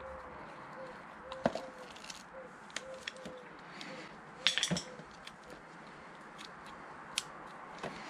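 Light scattered clicks and rattles of a motorcycle's plastic handlebar switch housing being worked with a small screwdriver and handled, with a short cluster of louder clicks about four and a half seconds in.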